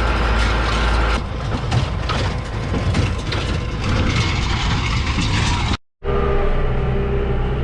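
A tractor and a New Holland Hayliner 67 small square baler running in the field: a steady engine hum mixed with the baler's mechanical clatter. The sound shifts abruptly about a second in, drops out briefly near the end, then picks up again as a steadier engine hum.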